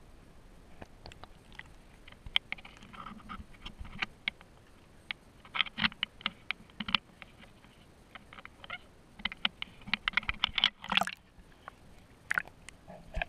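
Sea water slapping and splashing against a waterproof action-camera housing mounted low on a kayak as it dips in and out of the water. It makes irregular clicks and knocks, busiest about halfway through and again around ten seconds in.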